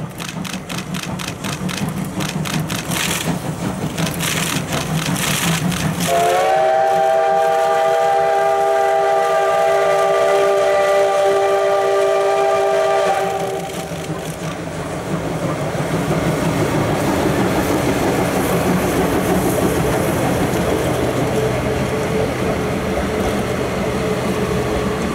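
C58 steam locomotive working a train: quick, even exhaust beats growing louder. About six seconds in comes one long steam whistle blast of several tones sounding together, held for about seven seconds. Then a steady rumble as the locomotive and its carriages roll past.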